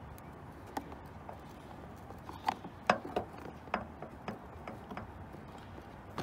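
Screwdrivers prying at the plastic air-cowl trim of a 2007 Ford Fiesta: irregular sharp clicks and taps of steel tips on hard plastic as a trim piece is worked loose.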